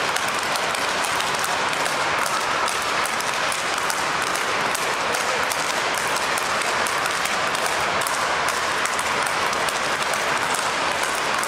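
Speedball rackets striking balls tethered to poles, from several players at once, in many quick clacks that blend into a steady clatter.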